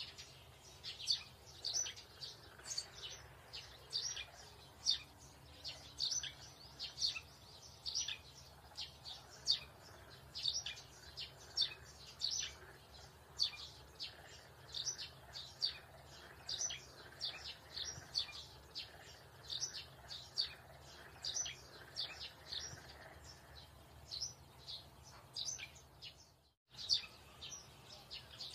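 Small birds chirping repeatedly, several short high chirps a second, over a faint low steady hum. The sound cuts out for a moment near the end.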